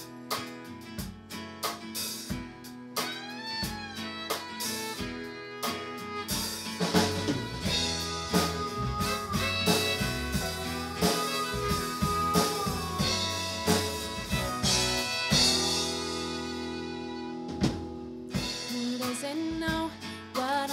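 Live country band playing an instrumental passage, a fiddle over guitars and a drum kit, filling out and growing louder about six seconds in.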